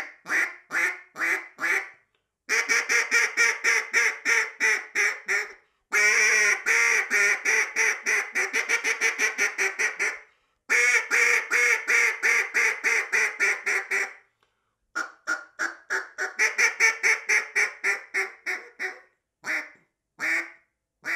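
RNT Daisy Slayer wooden duck call blown in long strings of rapid quacks, in several runs with short pauses, then a few single quacks near the end. Its built-in back pressure keeps the tone from breaking up where the caller pushes the volume.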